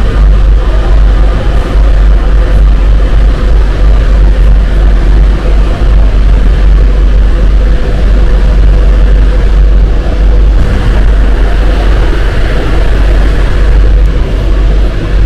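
Alstom MP-05 rubber-tyred metro train running, heard from on board: a loud, steady low rumble with faint steady tones above it.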